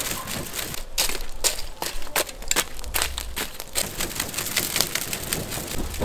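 Burning charcoal in a small brick-ringed pit crackling and popping with many sharp irregular snaps as it is fanned by hand, a low rush of moving air underneath.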